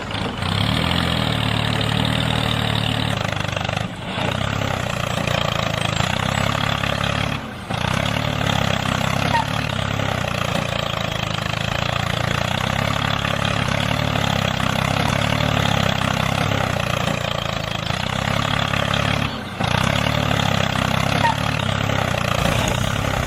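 A small engine running steadily, with three brief dips where the sound drops out for a moment.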